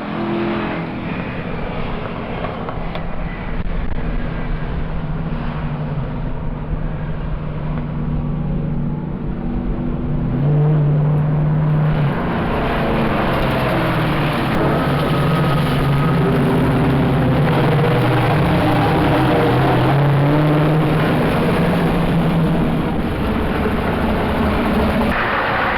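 Car engines running, their pitch stepping up and down as they rev and ease off. Several engines overlap, and the sound gets louder and fuller about halfway through.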